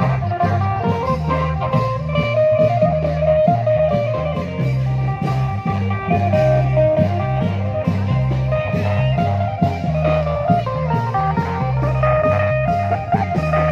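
Upbeat band music from a klong yao long-drum procession: steady drum beats under a stepping bass line and a lead melody line.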